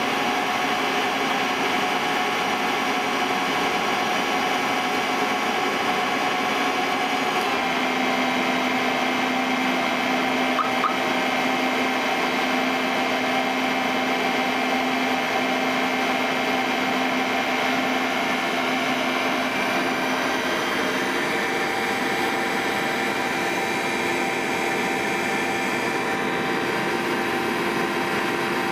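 Motor-generator set running: an electric motor belt-driving an alternator with a steady whine. Its tones shift about seven seconds in and again around twenty seconds in.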